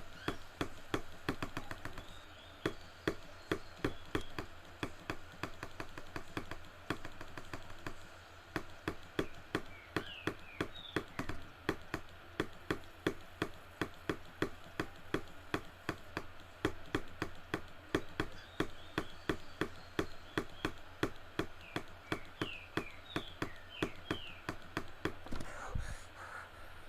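Small consumer firework popping repeatedly in a steady rhythm, about two to three sharp pops a second.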